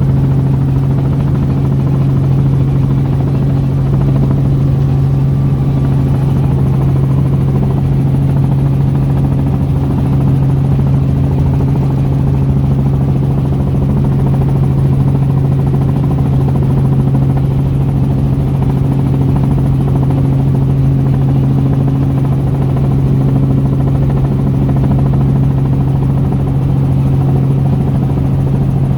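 Small helicopter's engine and rotor running in a steady, loud drone with a low hum that holds the same pitch throughout.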